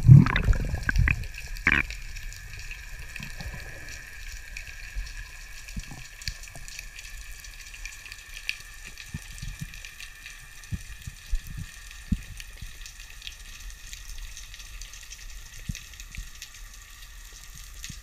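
Underwater ambience picked up by a camera below the surface: a steady fine crackle with scattered sharp clicks. A loud rush of moving water opens it and fades within about two seconds.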